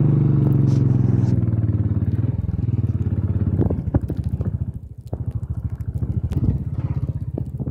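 Royal Enfield Bullet 500's single-cylinder four-stroke engine thumping as the bike climbs. It pulls loudly for the first couple of seconds, then eases to a steadier, quieter beat. A few sharp knocks come through as it rides over the rough track.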